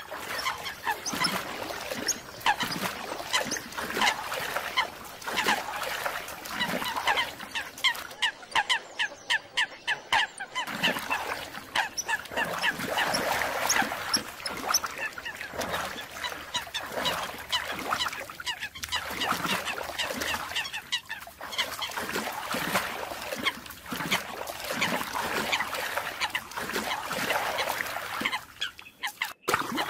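American coots calling: a dense run of short, repeated calls, the aggressive calls given in fights, with a quick, evenly spaced series of notes about eight to ten seconds in and a brief break near the end.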